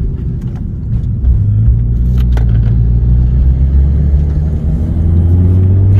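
Turbocharged engine of a 2019 Chevy Cruze with an AEM intake, tuned and straight-piped, heard from inside the cabin under acceleration. The engine note gets louder about a second in, holds, and climbs in pitch near the end, with intake and turbo noise that is really loud in the cabin.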